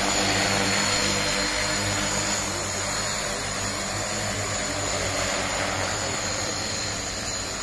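Multirotor agricultural spraying drone hovering close by: its propellers make a steady whirring drone with a thin high whine on top.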